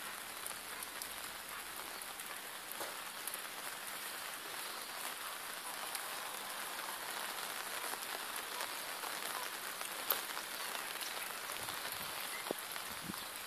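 Steady rain falling on the fabric roof of a garden gazebo tent, heard from inside, with small drop ticks through an even hiss.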